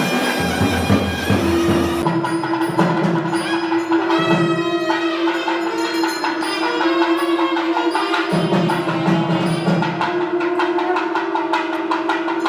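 Traditional South Indian temple music: a long held drone with a melody above it and regular drum strokes. About two seconds in, a noisy, crowded sound gives way abruptly to cleaner music.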